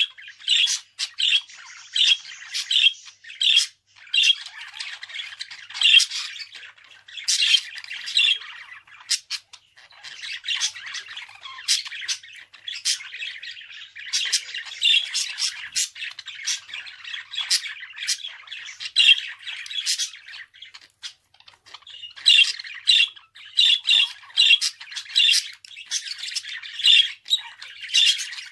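Budgerigar chattering and warbling in a fast run of sharp, high squawks. The calls come in loud bursts, ease into softer, steadier chatter around the middle, then turn loud and rapid again near the end.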